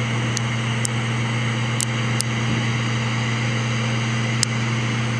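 Carlisle CC glassworking bench torch running on its big flame with a steady hiss and a low hum, while the cedar block burning in it cracks and pops about five times, sharp and short.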